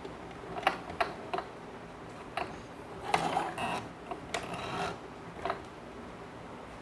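Irregular clicks and rustles as fabric and elastic are handled and set under the presser foot of an Usha Janome Dream Stitch sewing machine, with denser clicking about three and four and a half seconds in.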